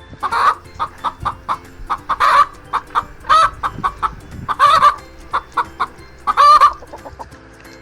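Chicken clucking: quick short clucks with four louder, drawn-out calls spaced about two seconds apart.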